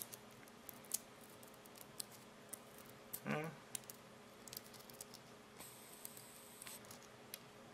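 Faint scattered clicks and crackles of a cracked black walnut shell being picked apart by hand. A short vocal sound from a man a little after three seconds in.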